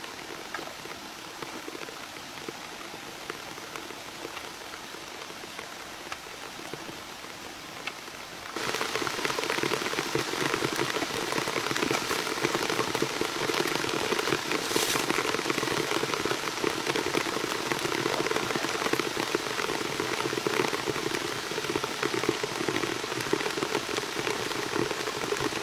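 Steady spattering water noise, like rain on a surface or running water, that jumps abruptly louder about a third of the way in.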